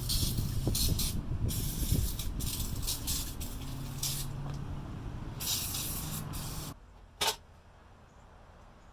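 Spray paint hissing in repeated short bursts over a low hum. It stops about seven seconds in, and one brief last burst follows.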